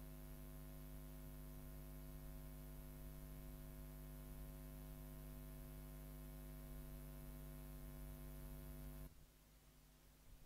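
Faint steady electrical mains hum with a buzz of evenly spaced overtones over light hiss. It cuts off suddenly about nine seconds in, leaving only fainter hiss.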